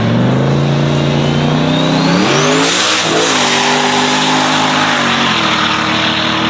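Turbocharged engine at full throttle in a roll race: its note holds, climbs about two seconds in under a rising turbo whistle, dips briefly at a gear shift near three seconds, then drops again a little after five seconds.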